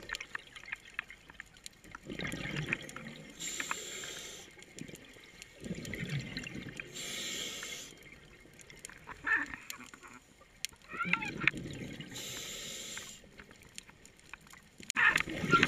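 Scuba regulator breathing heard underwater: three breaths, each a roughly one-second hiss of drawn air and a bubbling burst of exhaled bubbles, about four to five seconds apart.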